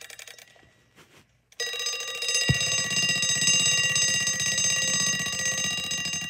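Bell alarm of a 1964 Westclox Big Ben wind-up alarm clock: a ringing tail dies away, then about a second and a half in the hammer starts striking the bell again in a rapid, continuous metallic ring that falls away at the very end.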